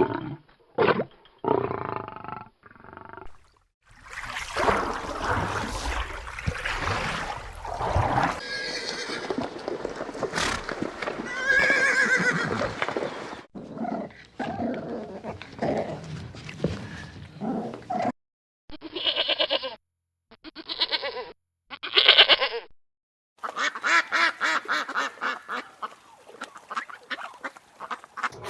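Calls from several different animals, mostly farm animals, one after another with abrupt cuts between them.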